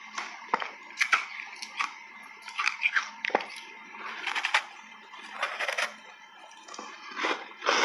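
Close-up chewing and biting of a buckwheat cupcake coated in matcha powder: a run of irregular small crackles and clicks.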